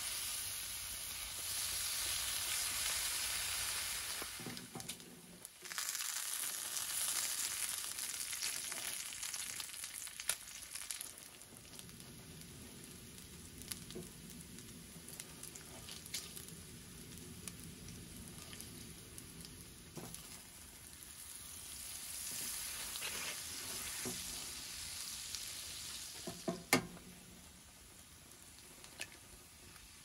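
Bacon and hash browns frying in a cast-iron skillet: a steady hiss that swells in the first few seconds and again later, with a few light clicks and a couple of sharper taps a little before the end.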